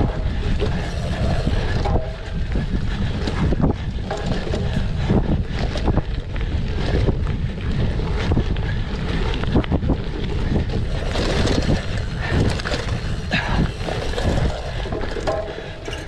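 Cyclocross bike ridden at race pace: heavy wind buffeting on the microphone, with frequent sharp knocks and rattles from the bike over the course.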